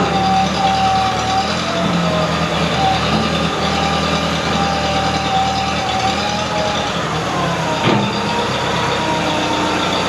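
Case 430 tractor engine running steadily, with a higher whine wavering over it. Near the end the whine shifts up in pitch, and there is a brief knock about eight seconds in.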